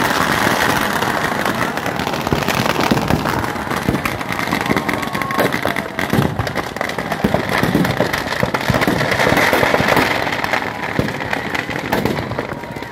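Firecrackers packed inside a burning Ravan effigy going off in a dense, continuous crackle of bangs, thinning slightly near the end.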